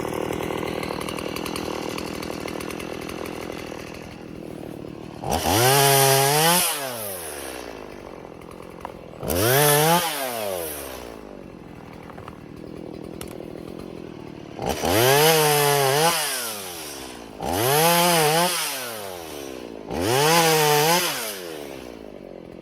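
Chainsaw idling, then revved up to full speed five times in bursts of one to two seconds, each time dropping back to idle, as it cuts through broken, snow-loaded branches.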